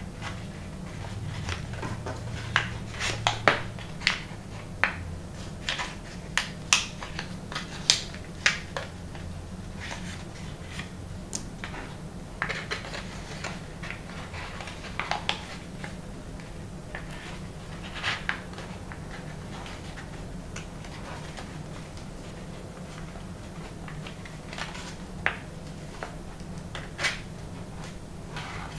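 Folded paper origami units being squeezed and pushed into one another by hand: irregular crisp paper crackles and clicks, coming in clusters and thickest in the first several seconds, over a steady low hum.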